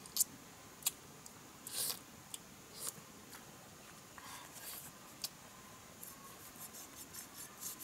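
Scattered light rustles and clicks of handling among dry leaves, then from about six seconds in a quick run of short scraping strokes as a knife scrapes at something on the ground.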